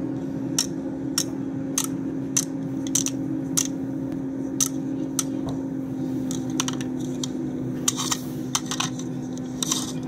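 A steady hum with sharp, evenly spaced ticks, a little under two a second, that become less regular in the second half.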